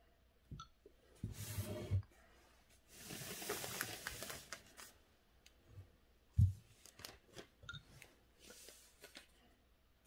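A sheet of calligraphy paper is slid and rustled as it is moved along to fresh space, in two spells of rustling. A dull thump comes about six and a half seconds in, followed by small taps and clicks of handling.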